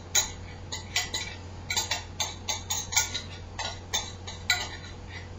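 Irregular clinks and taps against a glass mixing bowl, about two or three a second, as ingredients are stirred and worked together by hand.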